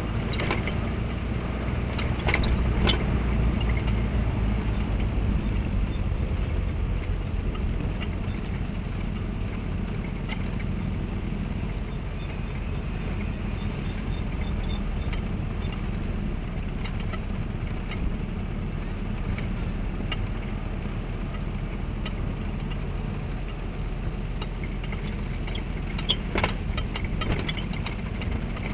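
Motorcycle and trike engines running, a steady low rumble throughout, with a few sharp clicks near the start and near the end.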